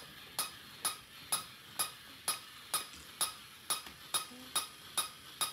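A pendulum device clicking in a steady rhythm, a sharp metallic click a little more than twice a second, evenly spaced.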